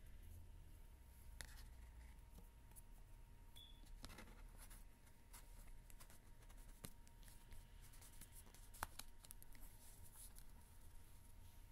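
Faint handling of a cardboard CD digipak and disc: light rubbing and scraping with scattered soft clicks and taps, and one sharper click a little under nine seconds in.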